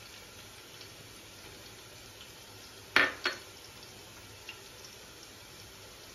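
Two quick clinks of kitchenware against a stainless-steel mixing bowl about three seconds in, over a faint steady hiss.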